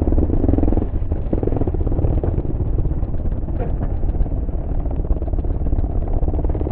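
Pit bike engine running hard under racing load, a dense, rough, rapidly pulsing motor sound with rattling.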